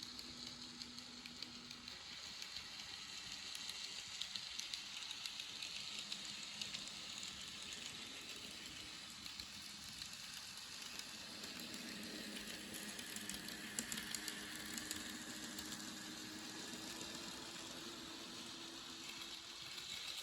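Graham Farish Class 101 N gauge model DMU running on the track with its sound decoder silent: a faint steady whir from its small motor and wheels on the rails, with a few light clicks.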